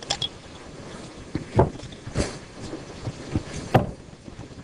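Rustling with a few sharp knocks, loudest about a second and a half in and again near the end, close to the microphone.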